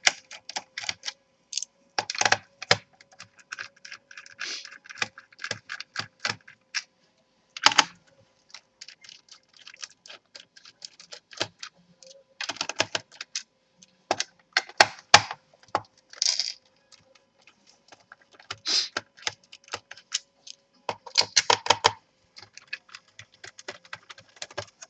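A small hand screwdriver backing screws out of a laptop's plastic bottom case: irregular runs of light clicks and ticks, with louder clusters here and there.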